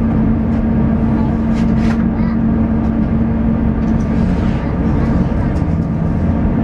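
Airbus A350-1000 cabin noise with its Rolls-Royce Trent XWB engine at ground idle, heard from inside at the window seat: a steady rumble under a constant low hum.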